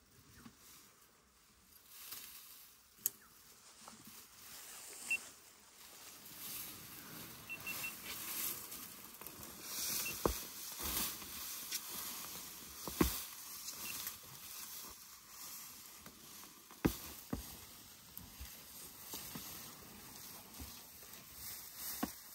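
African elephants feeding close by, their trunks and feet tearing and rustling dry grass, with several sharp snaps as roots and branches are pulled up and broken.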